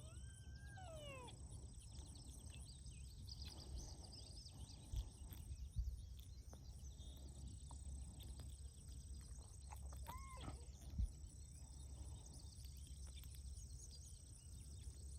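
Quiet outdoor ambience with a steady low rumble. A bird gives a falling call near the start and a short arched call about ten seconds in, and there are a few soft knocks.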